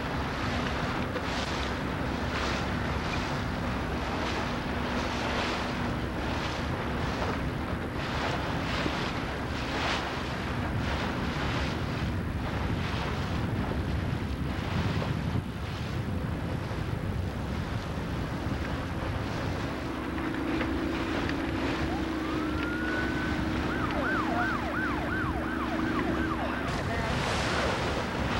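Wind buffeting the microphone on a boat under way, with a steady rush of water and motor noise. About twenty seconds in, a siren winds up and then yelps rapidly up and down for a few seconds before cutting off.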